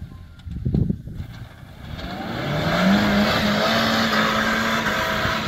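Suzuki Jimny's engine revving under load as it climbs a steep grassy slope: the note rises about two seconds in and then holds steady at high revs. About a second in there is a short loud low rumble.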